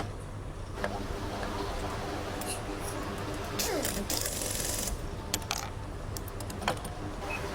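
Light clicks and taps of small engine parts being handled and fitted, over a steady low hum, with a brief hiss about four seconds in.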